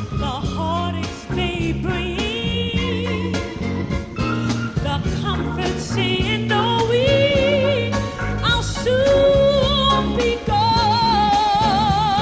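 Gospel song: a singer holding long, wavering notes with vibrato over a steady band accompaniment.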